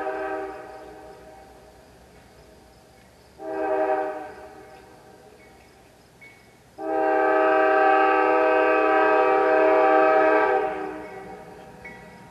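Multi-chime air horn of the lead locomotive, a GE ES40DC, on an approaching CSX freight. A long blast ends about half a second in, a short blast follows at about three and a half seconds, and a long blast of about four seconds starts near seven seconds in. Together they are the closing short and long of the grade-crossing signal.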